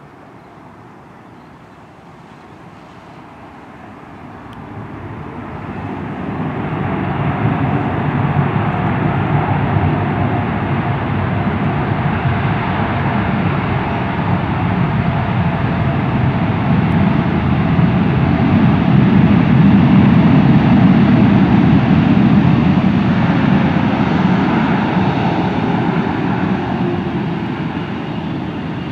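Boeing 787 Dreamliner's twin turbofan engines rising to a loud, steady roar a few seconds after touchdown as the airliner slows on its landing rollout, easing off near the end.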